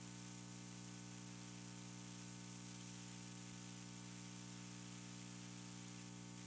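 Steady electrical hum with a buzzy edge and a constant hiss. It holds unchanged throughout, with no other sound over it.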